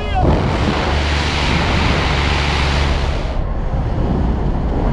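Loud rushing wind buffeting a skydiver's helmet-camera microphone in freefall after leaving the aircraft. The highest hiss of the rush drops away about three and a half seconds in.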